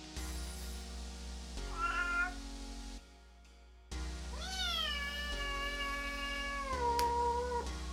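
Cat meowing: one short meow about two seconds in, then one long drawn-out meow that rises, falls and then holds level until near the end, over quiet background music.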